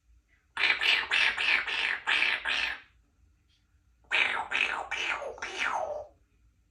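Congo African grey parrot making a quick string of repeated non-word mouth sounds, about six in a row, then after a pause a second run of five, the last one falling in pitch.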